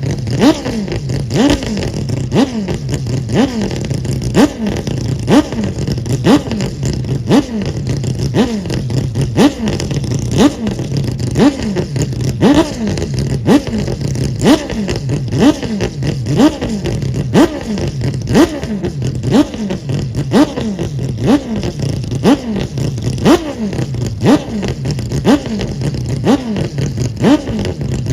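Mazda 787B's four-rotor R26B rotary engine being blipped over and over at idle, about once a second, each rev climbing briefly in pitch and falling straight back.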